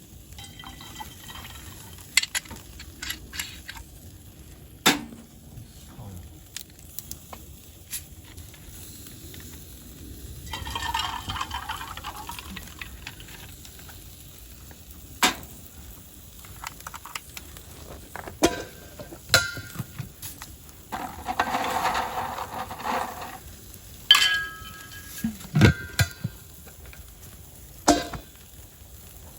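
Scattered clicks and clinks of metal camp tableware and utensils during a meal, some ringing briefly. There are two short rushing, pouring-like noises, about ten seconds in and again just past the middle.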